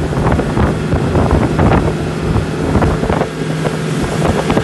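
Motorboat engine running steadily under way, a low hum under water splashing along the hull and wind buffeting the microphone.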